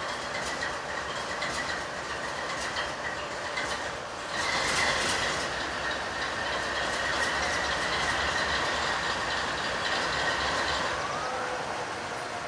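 Freight train cars rolling past, wheels clicking over the rail joints, with a steady high wheel squeal. The sound gets louder about four seconds in.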